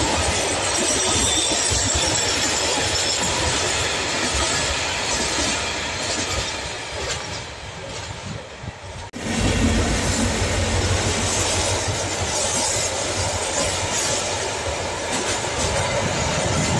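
Container freight wagons rolling past close by, a steady rumble with the clatter of their wheels on the rails. The sound fades as the train draws away, then cuts suddenly about nine seconds in to another container train passing close and loud.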